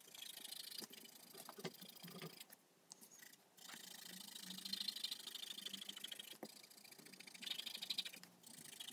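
Faint colored pencil scratching across paper in quick back-and-forth shading strokes, pausing briefly about three seconds in and again near the end.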